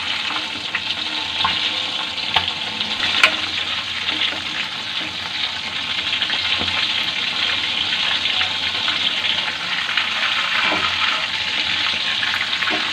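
Batter-coated chicken pieces deep-frying in hot oil on a medium flame: a steady sizzle with scattered crackles, and a couple of sharper clicks a few seconds in.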